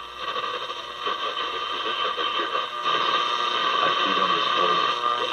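Bulova 300 AM tube radio's speaker hissing with static between stations as the dial is tuned, with faint broken snatches of a broadcast voice coming through.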